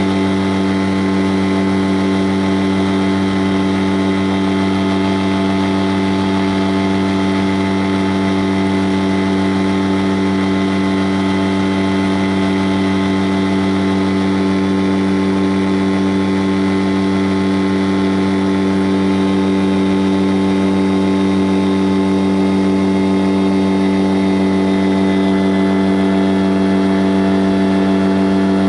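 An engine running at a constant speed: a loud, unchanging hum with no revving or let-up.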